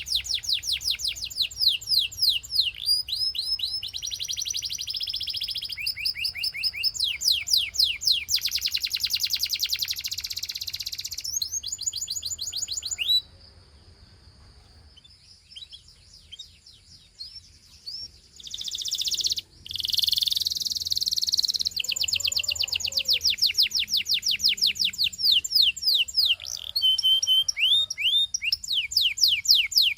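Gloster canary singing: long, fast trills of rapidly repeated high notes and rolls. The song breaks off about halfway through for several seconds and then starts again.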